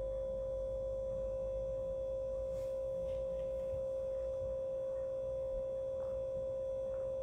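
A steady, pure, mid-pitched tone that holds unchanged throughout, with a faint low rumble beneath it.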